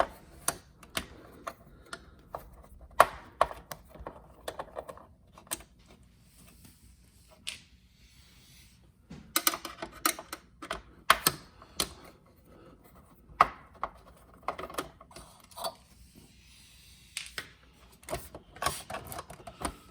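Irregular clicks, taps and clatters of a screwdriver and the player's metal and plastic parts being handled while the optical drive is worked loose from a Blu-ray player's chassis, in denser flurries now and then.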